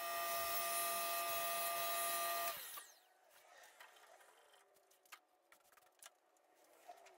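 SawStop 1.75 hp cabinet table saw running steadily with a high whine, cutting off sharply about two and a half seconds in. Faint light knocks of plywood being handled follow.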